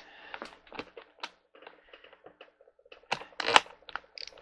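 Ratcheting screwdriver with interchangeable bits clicking as a screw is driven into a gaming chair's armrest bracket, a run of small clicks with a couple of louder knocks about three seconds in.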